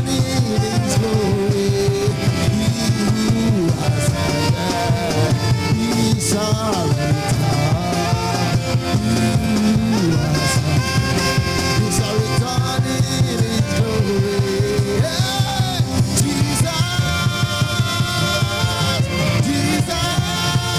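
Male worship singer singing into a handheld microphone over instrumental accompaniment with a steady beat.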